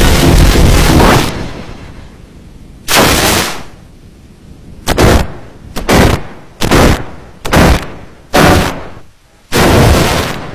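A string of short, loud, harshly distorted noise blasts at uneven gaps, the last one longer, typical of heavily effect-processed audio. It follows a dense wash of noise that dies away over the first second and a half.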